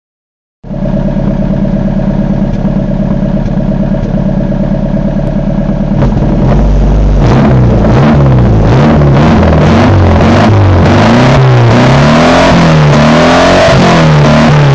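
Chevrolet Opala's naturally aspirated four-cylinder engine rumbling at a steady idle, then from about six seconds in revved again and again, the revs rising and falling roughly once a second.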